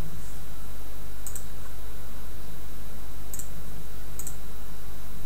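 Three computer mouse clicks, each a quick press-and-release pair, about a second in and twice more between three and four seconds in, over a steady low electrical hum.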